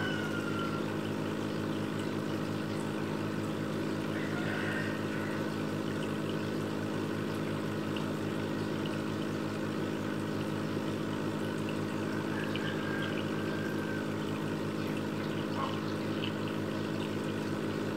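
Aquarium pump running steadily: a constant low motor hum with water trickling and pouring in the tank.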